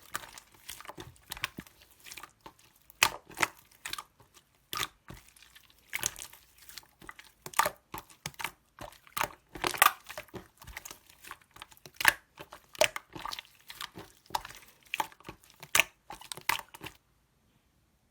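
Slime being squished and stretched by hand, giving a run of irregular sticky clicks and pops that stops near the end.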